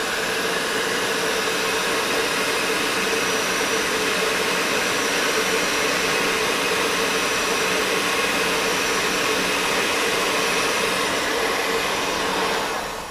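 Electric heat gun running steadily, blowing hot air to shrink heat-shrink tubing over a soldered wire splice. It is switched off near the end.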